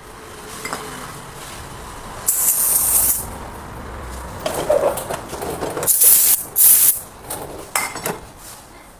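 Short hissing sprays of pressurised air or aerosol, one about two seconds in and two close together near the six-second mark, between knocks and clinks of metal tools on the wheel hub.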